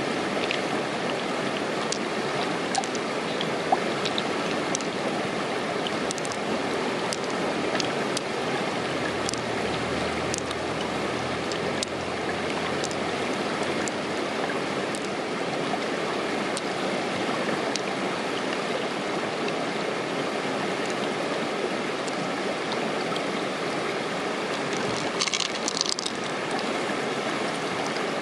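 Steady rushing of running water, with scattered light clicks as pearls are picked out of an opened freshwater mussel shell, and a short flurry of clicks and rustling near the end.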